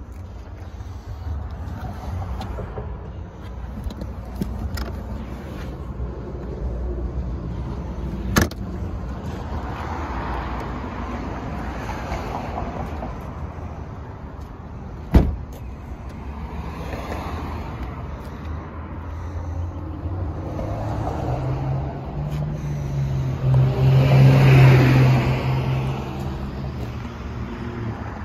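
Street traffic rumbling steadily, with one vehicle passing loudly about three-quarters of the way through, its low engine hum rising and fading. Two sharp clicks stand out, one about eight seconds in and one about fifteen seconds in.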